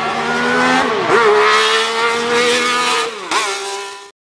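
Race car engine running at high revs with a steady pitch, which dips sharply and recovers twice, about a second in and near the end. It cuts off suddenly shortly before the end.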